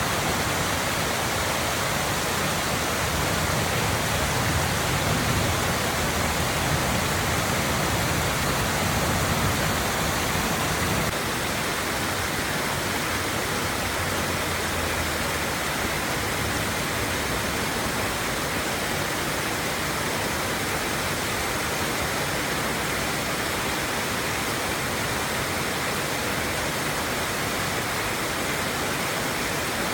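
Waterfall: a steady, even rush of falling water that drops slightly in level about eleven seconds in.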